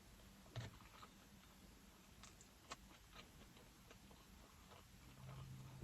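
Faint, scattered wet clicks of chewing and mouth sounds from someone eating fast food close to the microphone, with a low hum coming in near the end.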